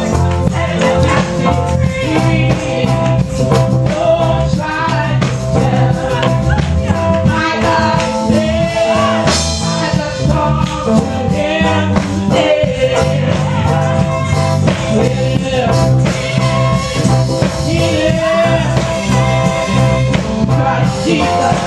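Live gospel song: a woman sings through a microphone and church PA over accompaniment with a steady beat.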